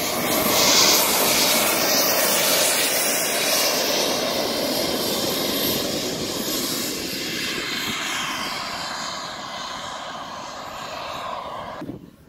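Jet aircraft flying past, loudest about a second in and then fading away slowly as it recedes, its whine falling in pitch.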